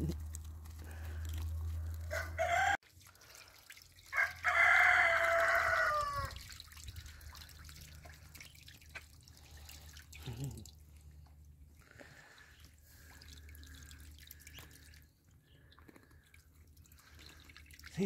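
A rooster crows once loudly about four seconds in, a long call that drops in pitch at its end, just after a shorter rising call. After it, ducklings paddle in a shallow pool with small splashes and drips of water.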